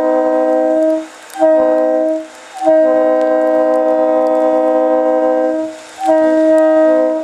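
Leslie RS-3L three-chime locomotive air horn blowing a chord in repeated blasts: a long blast cutting off about a second in, a short one, a long one of about three seconds, then another of about a second near the end.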